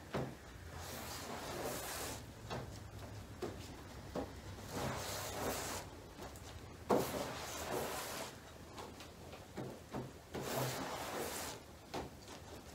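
Plastic spreader scraping and smearing body filler across a mixing board: four long scraping strokes a few seconds apart, with light taps and ticks between them. The hardener is being folded and kneaded into the filler until the colour is even.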